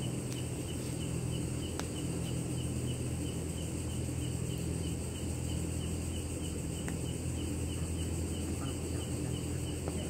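Night insects calling steadily, a high continuous trill with a regular chirping beneath it, over a low steady hum. A few sharp cracks from the burning wood fire.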